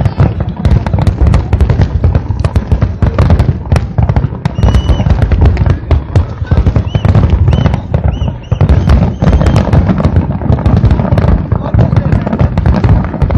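Fireworks display: a dense, continuous barrage of booming bursts and sharp crackling reports. Several short whistles sound around the middle.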